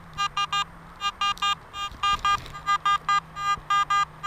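Garrett AT Max metal detector beeping on a buried target: a repeated mid-pitched electronic beep, about four a second and often in quick pairs.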